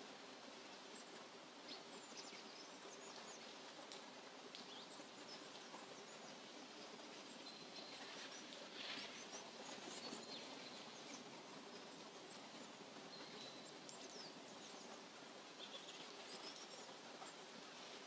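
Faint forest ambience: scattered bird chirps and short calls over a steady soft hiss.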